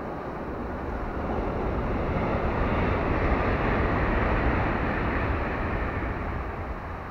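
A passing vehicle's rumble, swelling over a few seconds and fading again.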